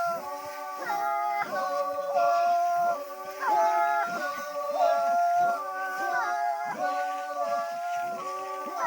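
Background music: held, stepping melody notes over chords with a steady beat.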